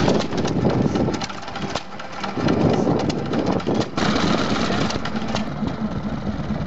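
Vintage stationary engines running, a busy clatter of firing strokes and valve gear. The sound changes abruptly about four seconds in to a steadier, somewhat quieter engine running.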